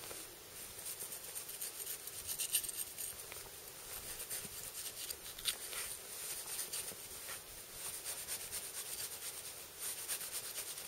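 Adventure Sworn Huntsman hunting knife cutting and scraping at a deer carcass, with gloved hands rubbing the fur: faint, irregular scratching and rustling strokes, with two sharper clicks about two and a half and five and a half seconds in.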